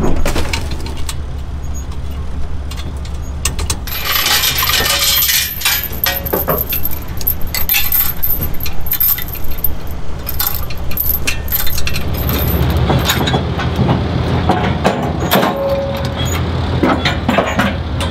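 Metal clinks and rattles of hand tools and steel parts as a B&W Companion fifth-wheel hitch is unfastened in a pickup bed, over a steady low engine-like hum. A louder, hissy rattling stretch comes about four seconds in.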